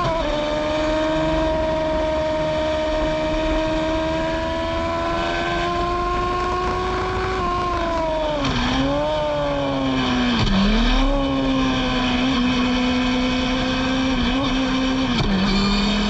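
Formula Gloria single-seater's 1000 cc Yamaha engine heard from the cockpit. The revs climb slowly along a straight, then the note drops and dips sharply twice as the car slows for a corner, holds steady through the bend, and falls suddenly near the end as the gear changes and then climbs again. Steady wind and road noise runs underneath.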